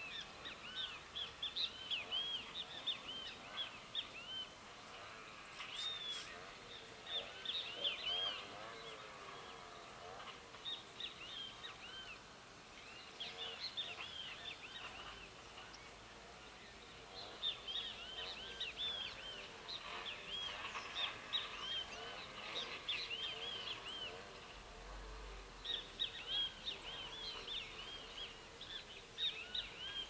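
A flock of small seed-eating birds chirping, many short high chirps overlapping in busy bursts with a few quieter gaps.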